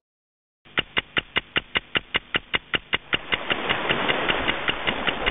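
A rapid, even ticking, about five ticks a second, starting about half a second in. From about halfway a rushing noise builds up steadily beneath it until the ticks are nearly covered.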